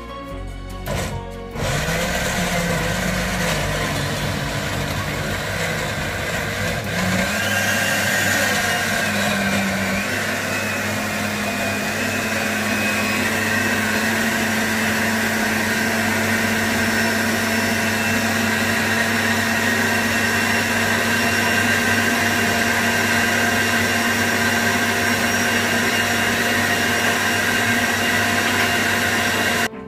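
Countertop jug blender running at full power, puréeing chopped vegetables into a thick smoothie. It starts about a second and a half in, its motor pitch rises around seven to ten seconds in and then holds steady, and it stops abruptly at the end.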